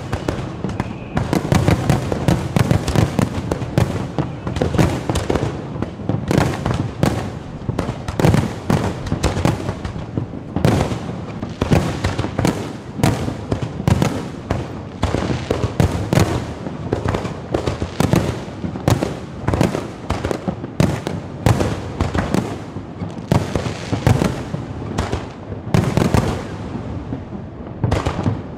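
Fireworks and firecrackers going off all around, a dense run of overlapping bangs and crackles with no pause.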